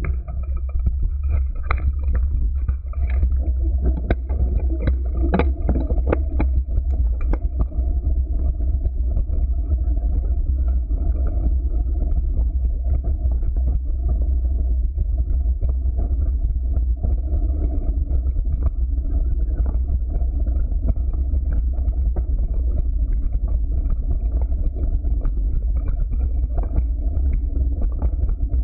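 Mountain bike running downhill over a rocky dirt trail, picked up by a bike-mounted camera: a steady low rumble of tyres and frame vibration, with sharp knocks and rattles over the first several seconds as it crosses loose stones.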